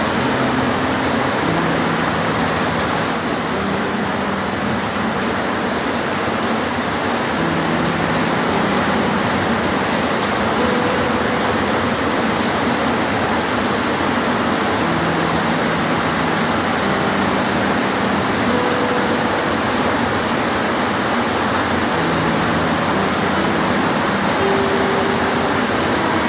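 Steady, even rain noise with no breaks, with faint short low tones now and then underneath.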